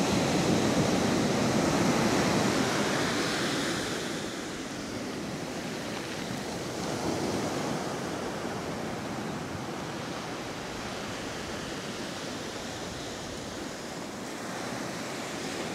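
Sea surf: small waves breaking and washing up over a sandy beach. It is louder for the first four seconds or so, then settles to a softer, steady wash with a brief swell about seven seconds in.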